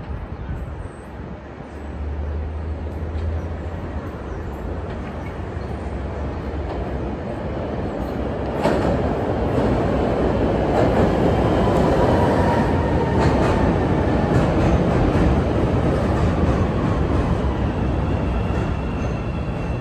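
Chicago L rapid-transit train running on the elevated steel tracks as it pulls into the station, its wheel and rail noise growing louder about eight seconds in. A faint whine rises over it while the train slows toward the platform.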